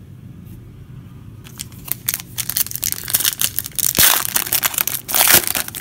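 Foil wrapper of a 2015 Panini Prizm Football card pack crinkling loudly as it is grabbed and torn open, starting about a second and a half in with dense crackling.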